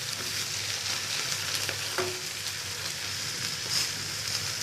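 Oil sizzling steadily under a rolled shawarma wrap toasting in a hot grill pan, with one light click about two seconds in.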